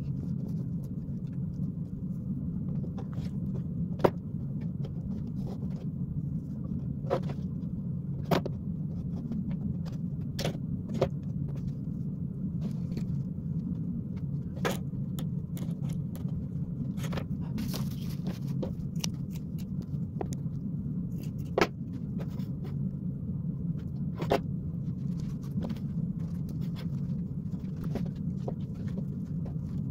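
A steady low rumble, with scattered sharp clicks and taps from twigs, fabric and a glue gun being handled on a wooden worktable.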